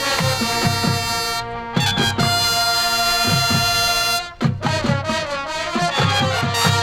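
High school marching band playing: brass and woodwinds over repeated bass drum hits. A long held brass chord sits in the middle, with shorter accented notes before and after.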